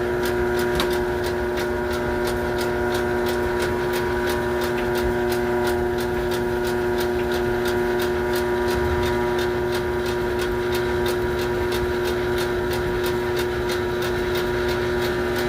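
An engine idling with a steady hum, and a regular light ticking on top of it, about three to four ticks a second.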